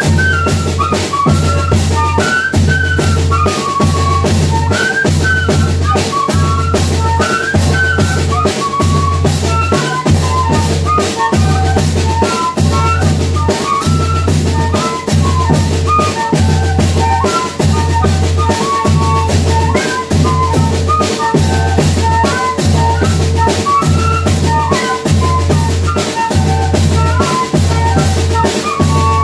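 Banda de pífano playing: a high fife melody over a steady beat of the zabumba bass drum and snare drum.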